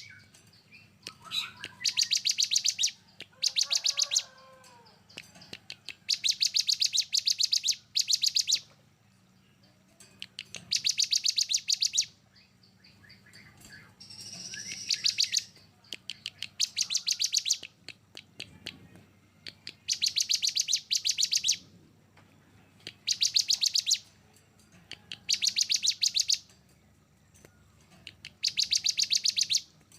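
Songbird singing harsh, rapid-fire 'tembakan' bursts, the fast rattling trills used in Indonesian bird-training 'masteran' recordings. Each burst is a high, fast-pulsed trill lasting one to two seconds, repeated about nine times with short pauses. One burst is smoother and more whistled.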